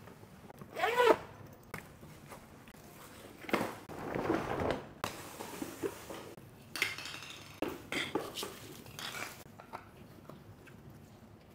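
Intermittent handling noises: light clicks, knocks and rustles of objects being moved about. The loudest are a brief squeaky, pitch-bending sound about a second in and a longer rustling swell around four to five seconds in.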